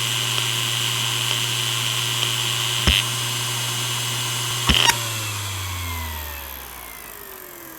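Maxtor DiamondMax 10 6V300F0 hard drive spinning with a steady hum and whine, with a few sharp clicks. About five seconds in it begins spinning down, its tones falling in pitch and the sound fading.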